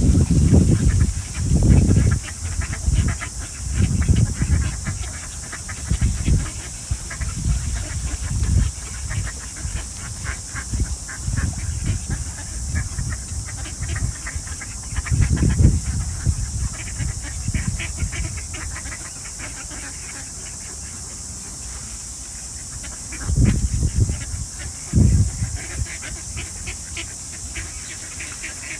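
A flock of ducks calling with many short quacks throughout, over a steady high hiss. Loud low rumbles of wind on the microphone come in gusts, mostly in the first third and again about three-quarters of the way through.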